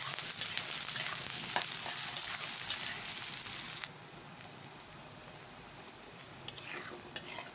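Finely chopped onions and cumin seeds sizzling in hot oil in a kadhai, being fried toward golden brown, with a metal spatula stirring them. About four seconds in the sizzle drops suddenly to a quieter hiss, and a few sharp clicks come near the end.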